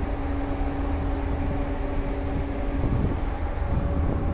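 Steady low rumble with a constant hum from the ferry's running shipboard machinery.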